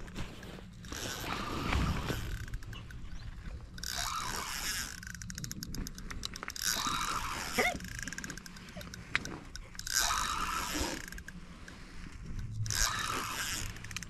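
Spinning reel being cranked in short bursts, with runs of fast mechanical clicking, as a large pike is played on the line.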